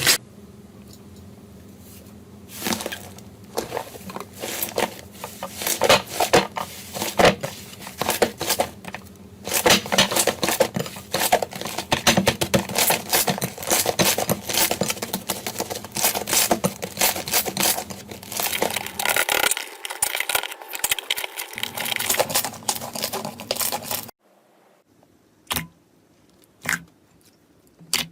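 Slime being handled and squeezed, making dense crackling, popping clicks. About four seconds before the end it changes to a much quieter stretch with only a few separate clicks.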